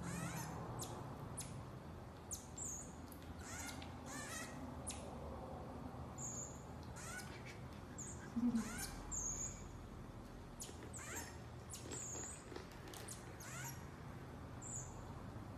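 Common marmoset giving short, high-pitched chirps every second or two while it eats, with some quick downward-sweeping calls among them.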